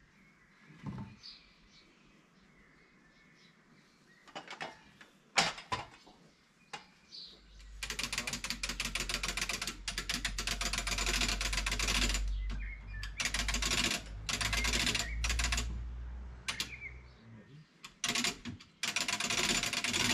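A motor-driven machine or tool runs in bursts with a rapid mechanical clatter over a low hum, after a few separate sharp knocks. The longest burst starts just over a third of the way in, and another starts near the end.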